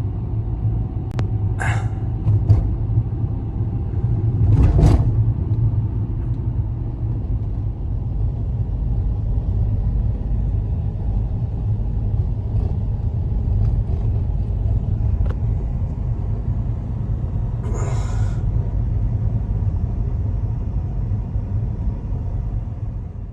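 Steady low rumble of strong blizzard wind, with a few brief rustling scrapes about two, five and eighteen seconds in.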